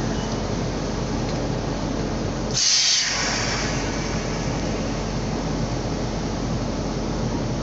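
A short, loud hiss of compressed air escaping at a train's brake-pipe hose coupling, about three seconds in, fading over a second. Under it runs the steady rumble of an idling locomotive.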